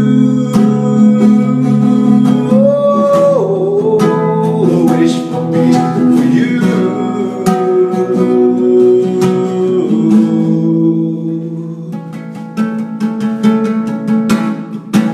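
Classical guitar strummed, with a man singing a melody over it; the voice drops out about ten seconds in and the guitar goes on strumming a little more quietly.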